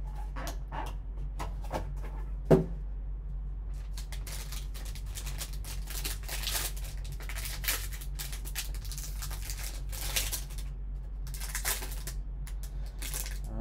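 Crinkling and rustling of a foil card-pack wrapper being pulled open and handled, with one sharp click about two and a half seconds in.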